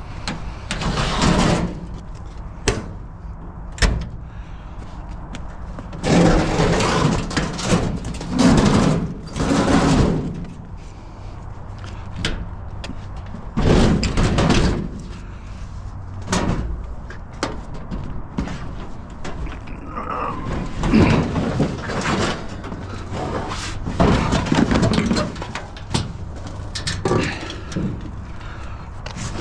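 Scrap items being handled and loaded into a vehicle: an irregular series of knocks, clunks and scraping, with door-like bangs.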